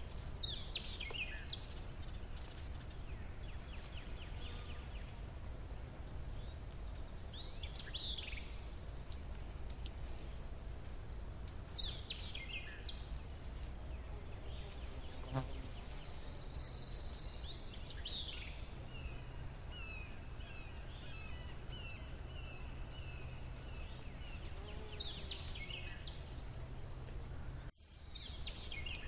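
Outdoor nature ambience: a bird gives short downslurred chirps every few seconds, with a quick series of even notes in the middle stretch, over a steady high hiss and a low rumble. The sound drops out for a moment near the end.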